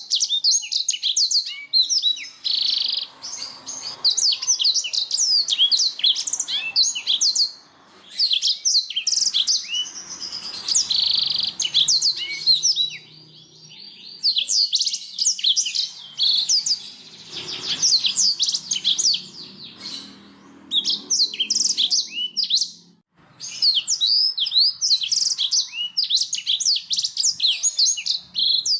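Domestic canary singing: long phrases of fast, high sweeping notes, broken by short pauses.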